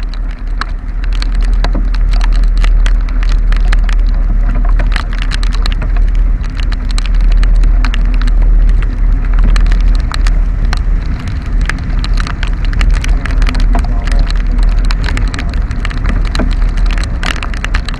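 Motorcycle riding in the rain: dense, irregular taps of raindrops striking the camera or mic, over a heavy, steady wind-and-road rumble and the bike's engine hum.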